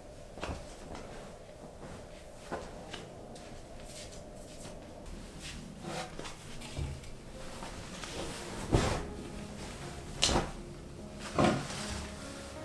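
Several short, sharp knocks of objects being lifted and set down on a table while a tablecloth is laid over it, the loudest about nine seconds in.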